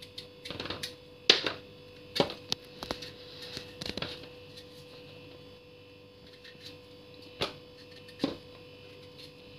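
Kitchen knife scraping and cutting the rind off pieces of pumpkin in irregular strokes, with peel and chunks dropping into a plastic bowl; the sharpest click comes about a second in, and there is a quieter stretch in the middle. A steady hum runs underneath.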